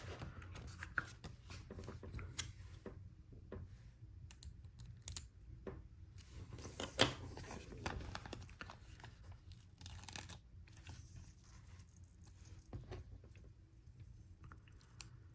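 A sticker being peeled off a LEGO sticker sheet, with soft papery rustling and scattered small clicks of plastic bricks being handled.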